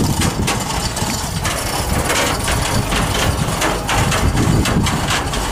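An engine running steadily, with scattered clicks and knocks.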